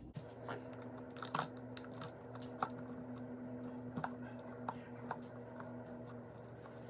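Crumbly cheese being broken up by hand: scattered light taps and clicks, about half a dozen, over a steady low hum.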